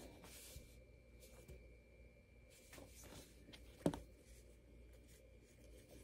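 Near silence: faint handling of pinned fabric, with a few light clicks, the sharpest just before four seconds in.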